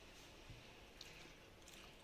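Faint eating sounds: a person chewing a mouthful of rice and chicken curry, with a few soft wet clicks, barely above room tone.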